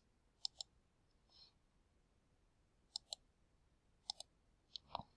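Computer mouse clicking: four brief groups of sharp clicks, mostly in pairs, against near silence.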